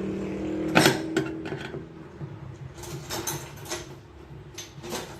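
Scattered clicks, knocks and creaks of air conditioner parts being worked loose by hand, the loudest about a second in, over a low hum that fades out early.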